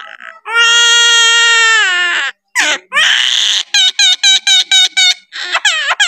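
Common myna mimicking a child crying: one long cry that falls slowly in pitch, then a rougher call and a quick run of short sobbing notes, about six a second.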